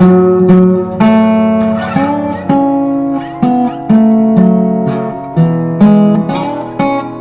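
Background music: an acoustic guitar playing a melody of plucked notes with sharp attacks, the notes changing about every half second.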